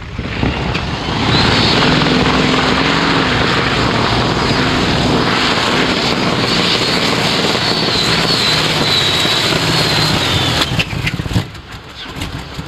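A tractor-pulling machine's engines running at full power through a pull, a dense engine noise with a high whine on top. It builds in the first second or so, holds loud and steady, then falls away about eleven seconds in.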